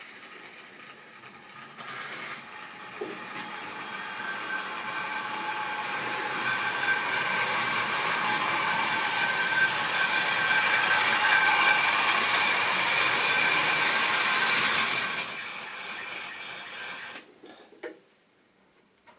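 Model railway train running on the track, its small electric motor whining over the rolling of wheels on rails, growing steadily louder as it approaches, then dying away and stopping a couple of seconds before the end.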